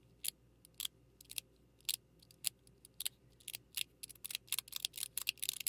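42cosmo XX mechanical fidget slider being slid back and forth, giving sharp clicks a few times a second that come faster and closer together near the end.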